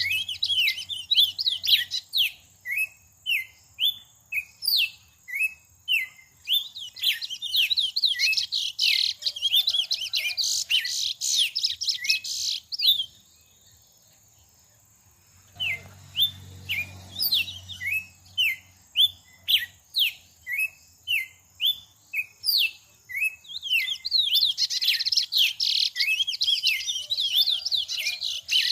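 A songbird calling over and over in short, sharp chirps, about two a second, with faster twittering runs in between. The calling breaks off for a couple of seconds about halfway, then starts again.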